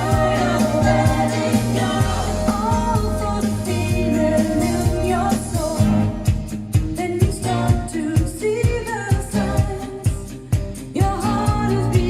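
Pop song with a sung melody over bass and a steady drum beat; the voice drops out for a few seconds in the middle and comes back near the end.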